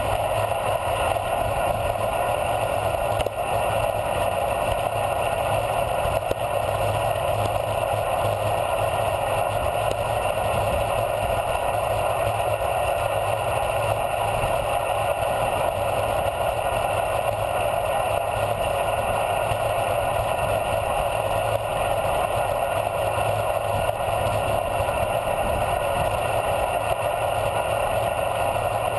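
Steady rush of wind and road noise on a handlebar-mounted camera as a bicycle coasts fast downhill on asphalt, unchanging throughout.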